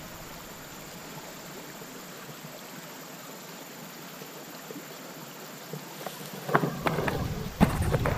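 Muddy stream water moving around a person wading through it, a steady wash of water noise. In the last two seconds it gives way to louder, irregular splashes and knocks.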